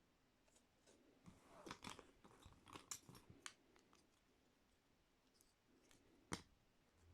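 Pieces of a wooden inset frame puzzle being handled: a run of light clicks and taps as they are moved and fitted, then one sharper knock a little after six seconds.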